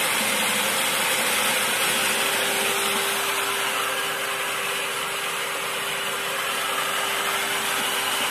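1 HP electric centrifugal water pump running steadily under an electronic pressure controller, pumping water with the outlet open. A steady hum joins the running noise about a second and a half in.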